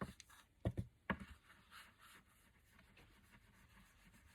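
Ink blending brush rubbing ink around the edge of a small serving board: a few light taps, then faint scratchy brushing.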